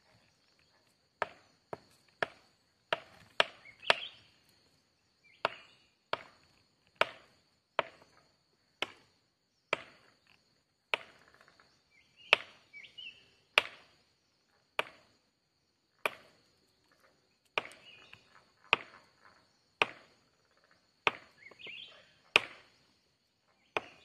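A steady series of sharp chopping knocks, about one a second, over a thin, steady high-pitched whine.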